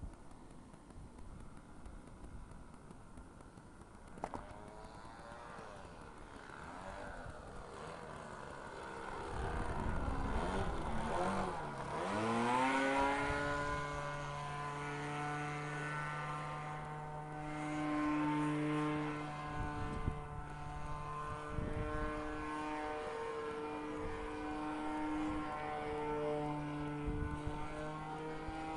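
Radio-controlled plane's OS .40 nitro glow engine running in flight overhead, faint at first. About halfway through it grows loudest and its pitch slides down and then back up once, after which it holds a steady drone with slight wavers in pitch.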